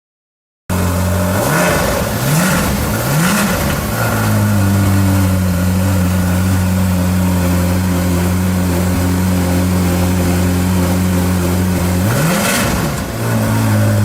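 Ferrari California T's twin-turbo V8 blipped three times in quick rising revs, then held at a steady fast idle, with one more short rev about two seconds before the end.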